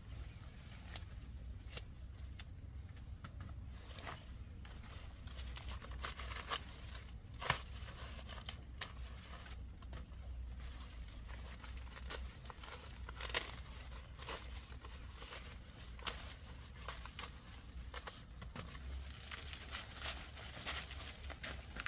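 Irregular rustling and crinkling with scattered sharp snaps and clicks, a few of them louder, over a low steady hum.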